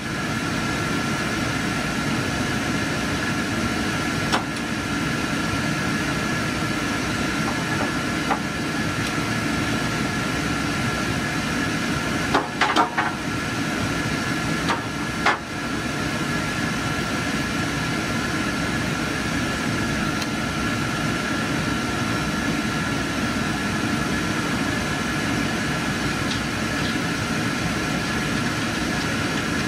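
Steady hum of IMAX 70mm projection-booth machinery, with a constant faint whine over it. A few sharp clicks and clatters of film-handling hardware break in, the loudest a cluster about twelve to thirteen seconds in and another near fifteen seconds.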